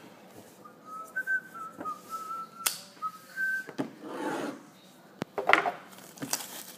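A person whistling a short tune of a few brief notes, then rustling and light knocks as a box is handled.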